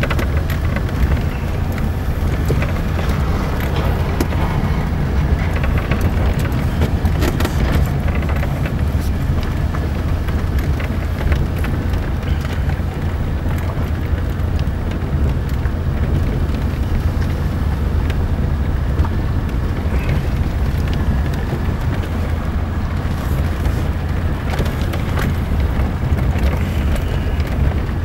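Steady low road rumble inside a car driving over a broken, potholed asphalt road, with scattered knocks and rattles from the bumps.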